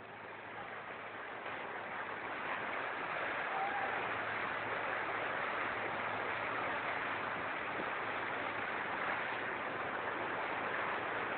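Steady rush of floodwater, building over the first few seconds and then holding, with a faint low hum underneath.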